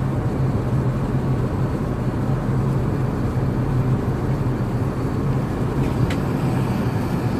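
Steady in-flight cabin noise of an Emirates Airbus A380: an even rush of engine and airflow sound with a steady low hum underneath.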